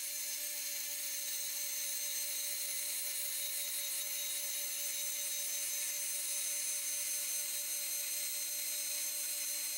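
Festool TS 75 track saw running steadily as it is pushed along its guide rail through a walnut and epoxy slab, a constant motor whine with a high hiss.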